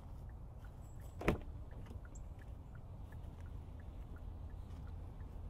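The driver's door latch of a 2023 Kia Niro clicking open once, a sharp click about a second in, over a low steady rumble.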